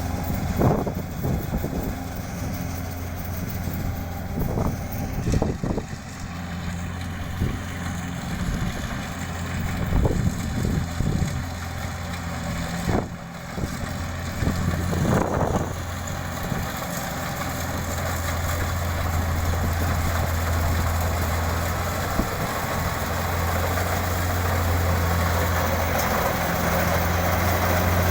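Kubota DC-70 combine harvester's diesel engine running steadily, with a few short knocks and clatters over the first half. It runs a little louder and more evenly in the second half.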